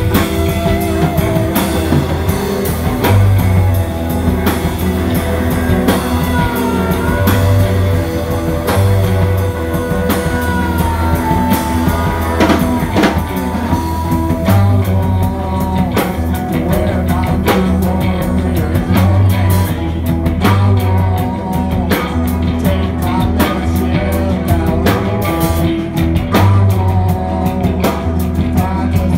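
A live rock band playing a song, with drums, electric bass, a banjo and electric guitar, at a steady beat.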